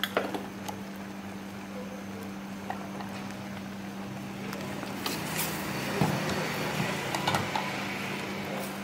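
Kitchen background at pots of porridge simmering over gas burners: a steady low hum with a hiss, scattered small clicks, and a few louder clatters in the second half.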